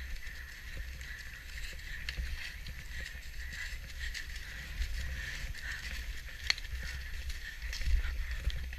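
Wind rumbling and buffeting on the microphone of a camera carried on a horse being ridden across a field, with scattered knocks and clicks from the horse's movement and tack.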